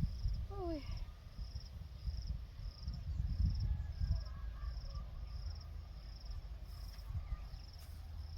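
An insect chirping in short high pulses about twice a second, over a fluctuating low rumble on the microphone. A brief falling squeak comes about half a second in.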